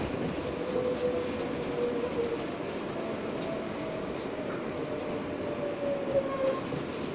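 An R143 subway car running at speed on elevated track, heard from inside the car: a steady rumble of wheels on rail, with a faint whine that drifts slightly in pitch and a few knocks, the sharpest about six seconds in.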